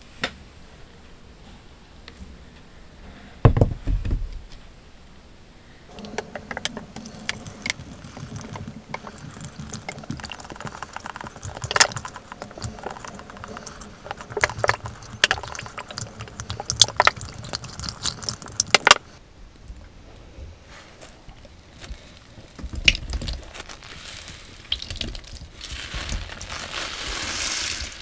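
Wet sponges full of thick shampoo suds being squeezed and handled, a dense run of squelching and crackling foam with liquid running off. A heavy thump comes about three and a half seconds in, and the squeezing is busiest in the middle.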